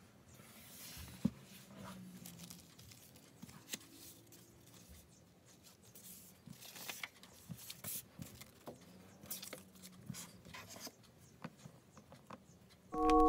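Faint handling of paper and stationery on a notebook: soft paper rustles and scattered light taps and clicks as sheets and rolls of washi tape are moved and set down, with one sharper tap about a second in.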